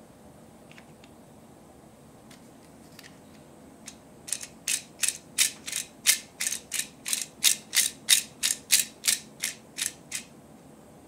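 Plastic ratchet dial on a miniature toy appliance being turned by hand, clicking about three times a second. The clicks start about four seconds in and run for about six seconds, with a few faint handling taps before them.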